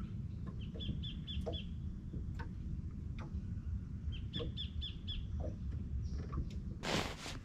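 A bird calling twice, each call a quick run of about five high chirping notes, over a low steady rumble. A short loud rush of noise comes near the end.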